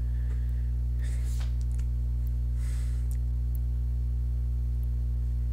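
A steady low hum with several evenly spaced overtones, unchanging throughout, with a couple of faint soft hisses about one and three seconds in.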